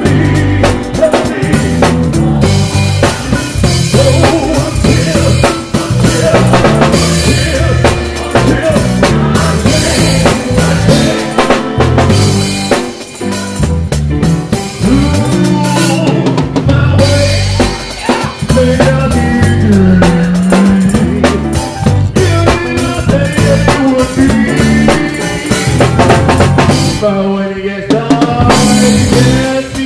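A gospel choir singing a lively up-tempo song over a driving drum kit, with steady bass drum, snare and rimshot hits.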